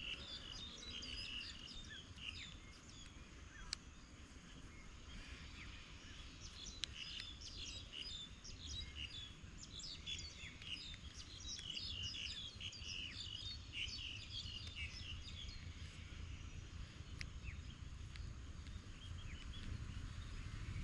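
Birds chirping outdoors: many short, high chirps, thickest through the middle, over a low steady rumble of wind or ambient noise.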